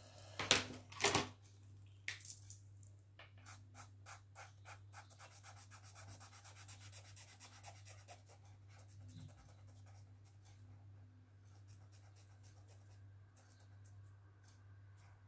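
Marker scratching on sketchbook paper: quick back-and-forth strokes, several a second, as a drawn bucket is coloured in black, with two louder strokes about half a second and a second in. A steady low hum runs underneath.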